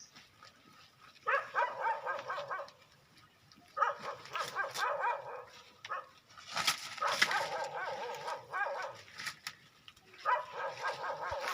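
A hungry goat kid bleating four times, each call long and quavering, with short pauses between.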